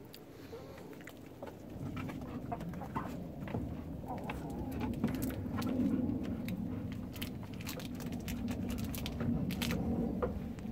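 Brown hens clucking low while they wait to be fed, with scattered sharp ticks and scuffles around them.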